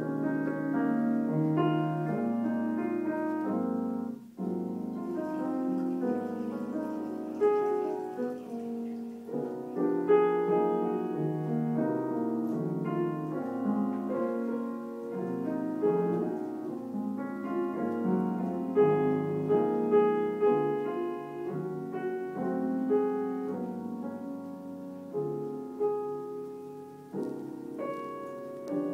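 Piano being played as practice: a continuous run of notes, with a brief sudden break about four seconds in.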